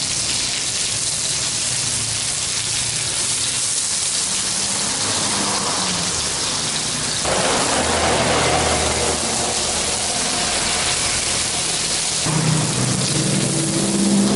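Betok (climbing perch) fish frying in oil in a Teflon pan over a gas burner, a steady sizzling hiss.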